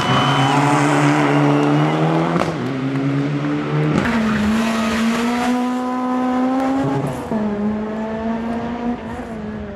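Rally car engine at full throttle, its pitch climbing and then dropping as it shifts up through the gears about four times, with tyre squeal in the first couple of seconds as the car slides. The sound fades a little as the car pulls away.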